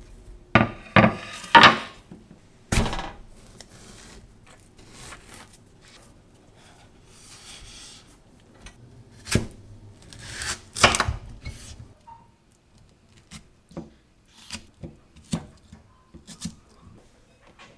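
A netted melon handled and cut with a kitchen knife on a wooden cutting board. There are a few sharp knocks in the first three seconds and rubbing and slicing sounds in the middle. A run of short, light knife clicks near the end comes as the melon is sliced into wedges on a glass plate.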